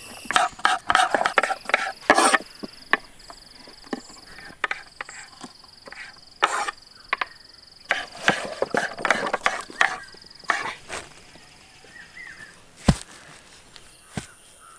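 Kitchen knife chopping jackfruit bulbs on a wooden cutting board: quick, irregular knocks in clusters, with a thin steady high tone in the background and a single sharp knock near the end.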